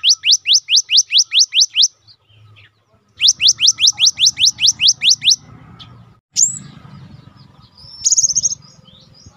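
Cinereous tit (gelatik batu) calling loud, rapid runs of down-sweeping whistled notes, about six a second, in two bursts with a short pause between. Near the end come a single sharp note and a brief buzzy trill.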